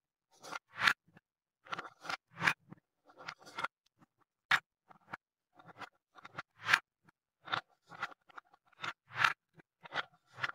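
Wooden balls clacking against each other and against a wooden spoon and bowl as they are scooped up, and knocking into wooden cups as they are dropped in. They make an irregular string of short, sharp wooden knocks and scrapes.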